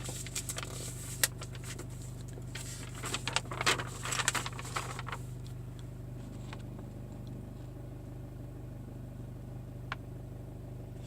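Nissan Qashqai 2.0 dCi diesel engine idling steadily as a low hum, with papers being handled: rustling and clicks, busiest between about two and five seconds in.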